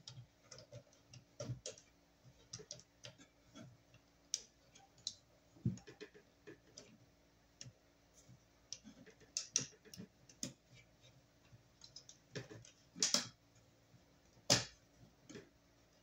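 Irregular small clicks and taps of stiff copper wires and fingers working at a metal breaker disconnect box's terminals, with two louder knocks near the end.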